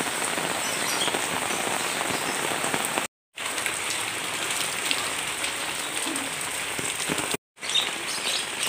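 Steady rain falling on a concrete path and the surroundings, an even hiss that drops out twice for a moment, about three seconds in and again about seven and a half seconds in.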